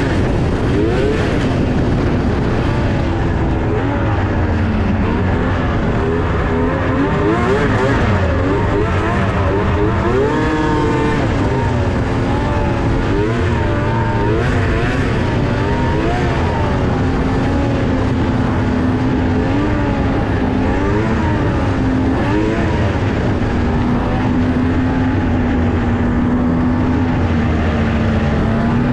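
Yamaha snowmobile engine running hard, its pitch climbing and falling over and over as the throttle is opened and eased, then holding a steady note for a few seconds near the end.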